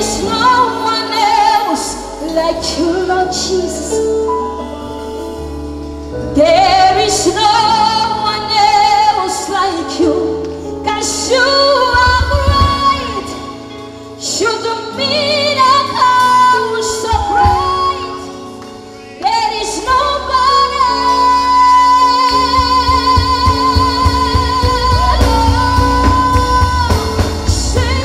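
Live gospel worship song: a woman sings the lead backed by a band. She holds one long note about twenty seconds in, and the band's low end grows fuller toward the end.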